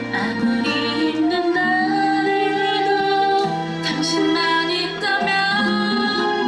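Upbeat trot-style pop song with female vocals singing held melodic lines over the music.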